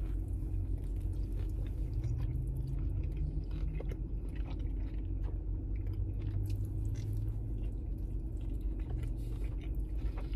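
A person biting into a burger and chewing it, with small wet mouth clicks throughout, over a steady low hum.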